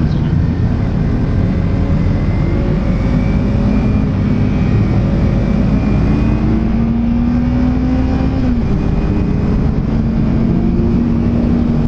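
Kawasaki Ninja 300 SE's parallel-twin engine pulling under way, its pitch climbing slowly, dropping suddenly about eight and a half seconds in at a gear change, then climbing again, over a steady rush of wind noise.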